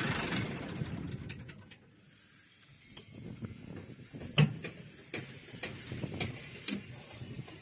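Concrete pump's machinery winding down and falling silent about two seconds in, followed by scattered, irregular mechanical clicks and knocks.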